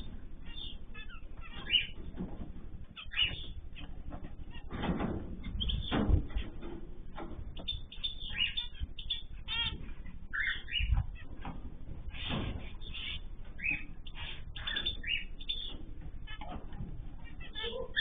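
A mixed flock of small pet cage birds chirping and calling, with many short high notes and trills. Wings flutter and there are soft thumps and rustles among them.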